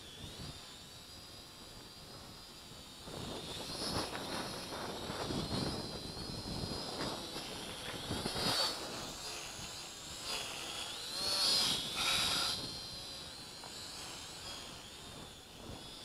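Holy Stone HS110D quadcopter's small motors and propellers whining high as it hovers in strong wind, the pitch wavering constantly, with louder swells about four, eight and twelve seconds in. Wind rushes over the microphone.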